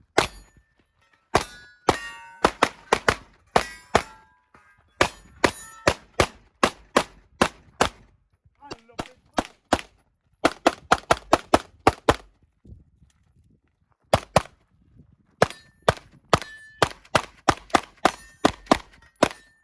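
Pistol shots fired in fast strings of several a second, with steel targets ringing on hits. There are two short pauses in the shooting near the middle.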